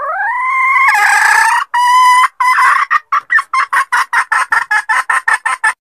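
Red junglefowl hen cackling. The call opens with a long call that rises in pitch and holds, then a second held note, and breaks into a fast run of short clucks, about five a second, that stops just before the end.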